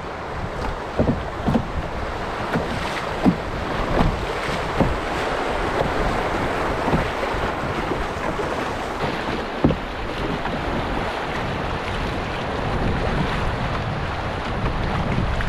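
Rushing river water through shallow rapids around an open canoe, with wind buffeting the microphone. A handful of short knocks come in the first ten seconds or so.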